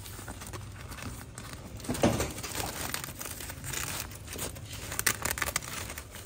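Nylon wheel cover on a motorcycle's rear wheel crinkling and rustling as hands pull at it to take it off, in irregular crackles with a louder rustle about two seconds in.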